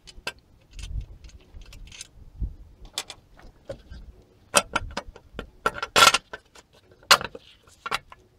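Clicks, taps and rattling knocks of a loosened engine cover being worked free and lifted off a Land Rover 300Tdi engine, sparse at first and coming thicker and louder in the second half, with a few sharp knocks.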